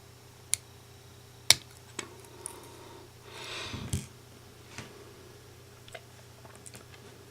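Small metal spring taken from a retractable pen being snipped to length and handled: a few sharp clicks and snaps, the loudest about a second and a half in, and a brief rustle about three and a half seconds in.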